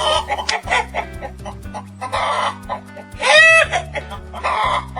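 Chicken clucking: a quick run of short clucks, then several louder cackling calls, the loudest about halfway through.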